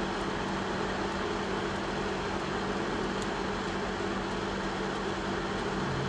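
Steady car engine and road noise heard inside the cabin: an even rush with a low steady hum under it.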